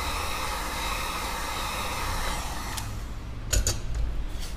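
Hot-air blower running steadily with a fan whine, heating the iPad's glass to soften its adhesive, then cutting off about three seconds in, followed by a couple of sharp clicks.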